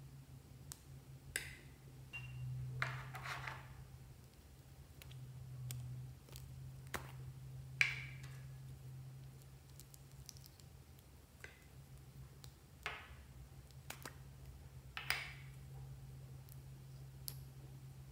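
Small scissors snipping through a lip balm stick, then scattered plastic clicks and soft scraping as balm is scooped from a small plastic pot. The sounds are quiet and come as short separate clicks and rasps, over a steady low hum.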